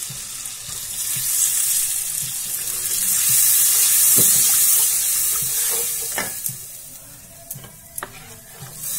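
Onion and spice masala in hot oil sizzling and bubbling hard in a non-stick kadhai after a splash of water, stirred with a spatula. The hiss swells, then dies down over the last few seconds as the water cooks in, with a few light knocks of the spatula on the pan.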